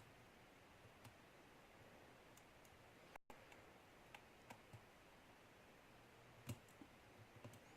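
Faint, scattered clicks and ticks of a Sparrows short hook pick working the pins inside a pin-tumbler lock under light tension, the loudest click about six and a half seconds in.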